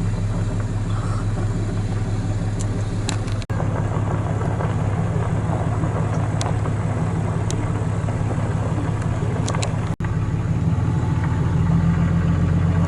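A vehicle engine running steadily with a low hum. The sound drops out abruptly for an instant twice, and after the second break the hum sits at a slightly different pitch.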